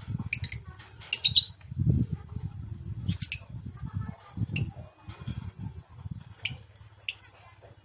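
Lovebird giving short, sharp high-pitched chirps about six times, a few in quick pairs. Low knocking and rustling runs underneath throughout.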